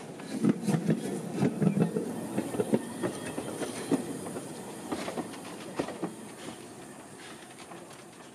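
Narrow-gauge steam locomotive Palmerston rolling slowly past close by, its wheels and motion making irregular clanks and clicks over the rail joints, loudest in the first few seconds and then fading as it moves away.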